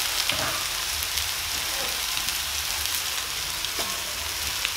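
Minced meat stew with onions and potatoes sizzling in a pan on the stove: a steady frying hiss with faint light crackles.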